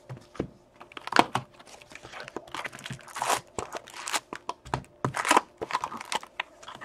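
Plastic wrap crinkling and tearing off an Upper Deck hockey card box, then the cardboard box opened and the foil card packs rustling as they are pulled out. It comes as a run of irregular crinkles and snaps.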